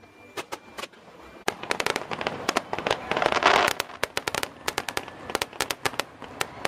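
Aerial fireworks going off in a rapid, irregular string of sharp pops and bangs. The pops grow much denser about a second and a half in, with a loud rushing hiss a little past the middle.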